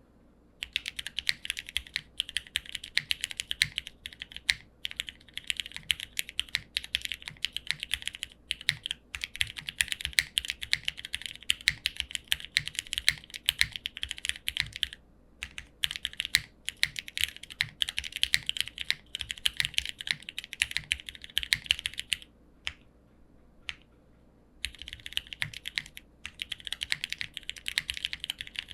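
Continuous fast typing on a Neo65 mechanical keyboard with lubed and filmed Cherry MX2A switches, an aluminium plate, no foam and PBT keycaps: a dense, rapid clatter of keystrokes. It breaks off briefly about halfway and for about two seconds near the end.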